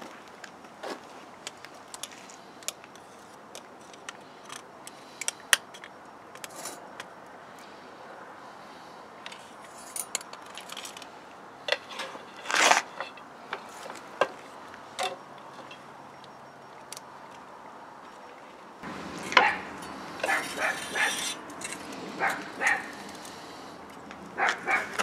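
Scattered sharp clicks and ticks over a quiet background. About two-thirds of the way through comes a louder run of metal clinks and clatter as a carving fork and grill tongs handle the roast on the stainless-steel grill grate.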